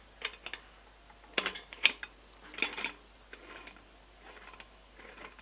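Sharp metal clicks and clinks of a stainless steel V-band clamp being handled and worked by its single T-handle bolt on a filter housing head. The loudest come about one and a half and two seconds in, with fainter ones later.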